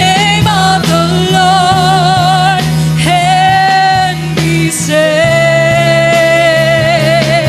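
Gospel worship music: a voice sings long held notes with vibrato over a steady sustained low accompaniment, a new note starting about five seconds in.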